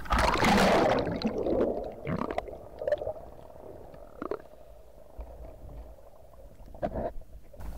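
Sea water splashing as the speargun breaks through the surface in the first second. Then muffled underwater gurgling and bubbles with a few light knocks.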